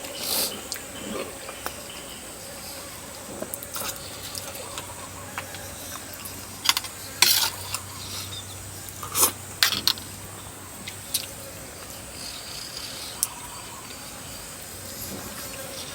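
Eating sounds: scattered short clicks and smacks of utensils and of chewing, sharpest near the middle, over a faint steady high-pitched tone.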